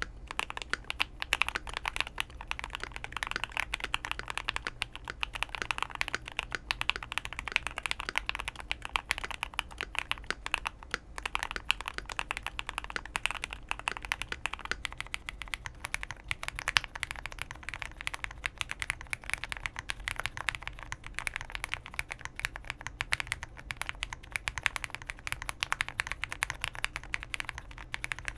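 Fast, continuous typing on custom mechanical keyboards with lubed, filmed linear switches on aluminium plates and JTK keycaps. The first is an IKKI Aurora R1 with Equaz Tangerine switches and PE foam and tape mods. About halfway through it changes to a Spring board with Cherry Hyperglide Black switches and a tape mod.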